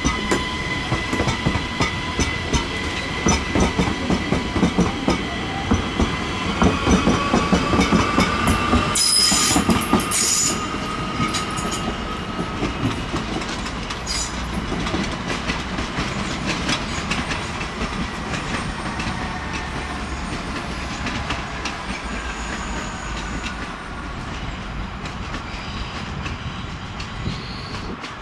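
ÖBB Cityjet (Siemens Desiro ML) electric multiple units running through the station: wheels clattering over rail joints and points under a steady electric whine. About nine seconds in, a departing train's traction motors whine rising in pitch as it pulls away, and the clatter slowly fades.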